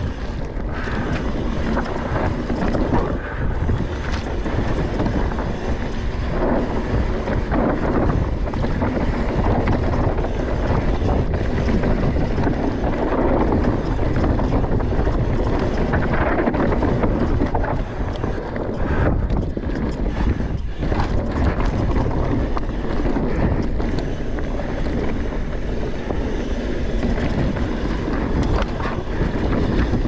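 Wind rushing over the microphone of a camera riding on a mountain bike, with the knobby tyres rumbling over a dry dirt singletrack and the bike rattling over bumps and roots throughout.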